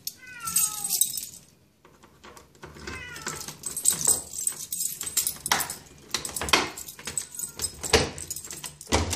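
Domestic cat meowing a few times, each meow falling in pitch, the first and clearest right at the start. Keys jangle and click against the door lock.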